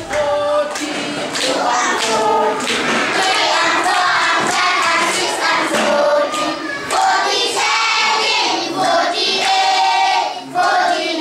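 A class of young schoolchildren singing together, clapping their hands in time.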